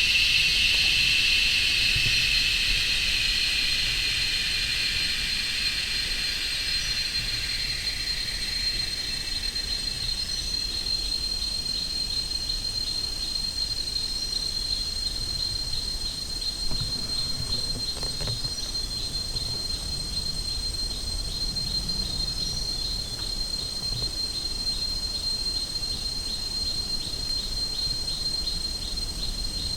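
Forest insects calling: a steady high-pitched trill that pulses rhythmically, over a buzzing insect chorus that fades away during the first several seconds.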